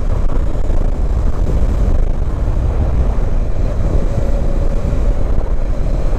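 Steady wind rumble on the microphone with engine and road noise from a Honda CB500X motorcycle riding at an even speed.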